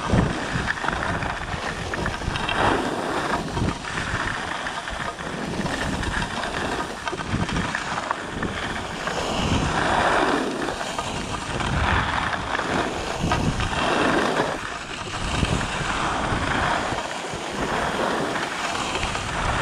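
Skis scraping and carving over packed snow through a run of turns, the scrape swelling with each turn about every two seconds. Wind rushes over the microphone underneath.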